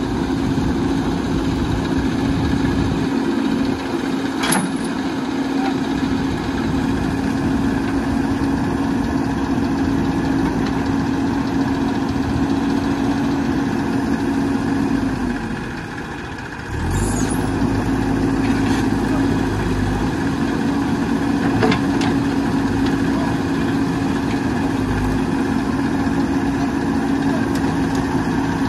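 Diesel engines of a JCB backhoe loader and a tractor running steadily at a heavy idle. About sixteen seconds in the sound drops out briefly, then comes back with a deeper rumble.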